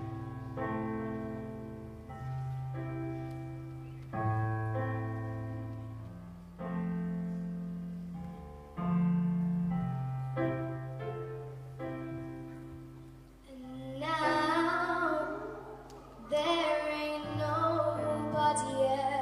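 Slow live band accompaniment of held, fading chords, changing about every two seconds with a low bass note under each. About two-thirds of the way in, a young boy's high voice comes in singing with vibrato over the chords.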